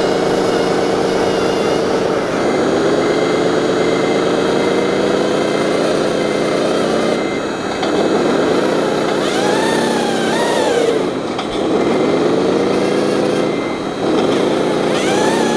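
Radio-controlled model trucks and construction machines running, the motor sound rising and falling in pitch again and again as they speed up and slow down. A high beep repeats for a few seconds near the start and again midway.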